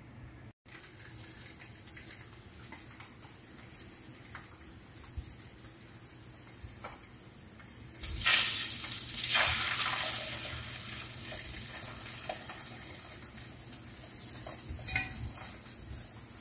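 Egg-battered, floured beef slices laid into a hot oiled frying pan, sizzling loudly. The sizzle starts suddenly about halfway through, surges again a second later, then settles into a steadier fry. Before that there are only faint handling clicks.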